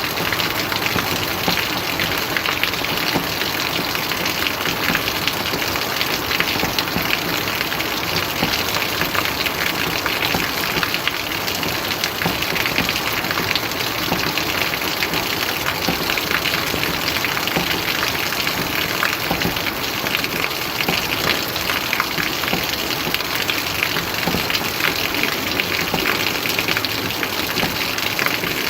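Steady rain falling, a dense even hiss of many drops.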